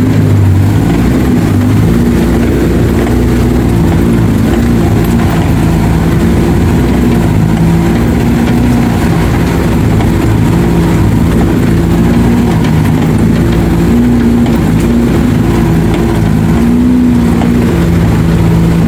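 Suzuki off-road 4x4's engine running steadily under way, a continuous drone whose pitch shifts slightly now and then.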